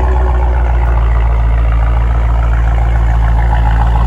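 2020 Dodge Challenger Scat Pack's 392 (6.4-litre) HEMI V8 idling steadily through its exhaust with the mid mufflers deleted.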